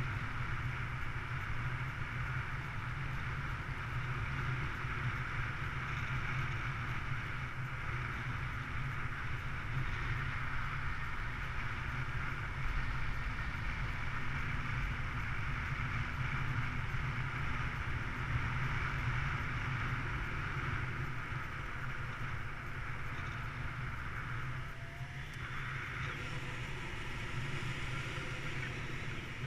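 Steady rush of air from a paraglider in flight, buffeting the action camera's microphone as constant wind noise.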